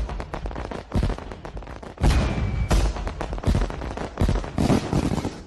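Fireworks going off: a dense, continuous run of sharp bangs and crackling, with several louder booms through it.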